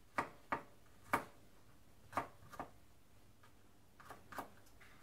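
Kitchen knife dicing garlic on a cutting board: sharp, irregular taps of the blade striking the board, about seven of them.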